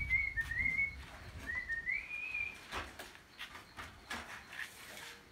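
A high, wavering whistle in several short phrases that step and glide upward, lasting about the first three seconds. After it come a couple of sharp knocks as a wooden board is handled.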